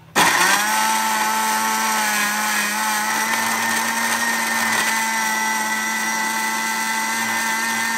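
Electric kitchen mixer grinder switched on just after the start and running at a steady speed with a loud, even motor whine.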